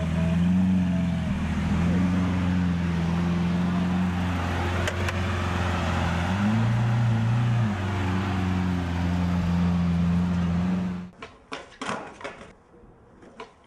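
An engine running with a steady low drone whose pitch steps up and down a few times. It stops abruptly about eleven seconds in, and a few short knocks follow.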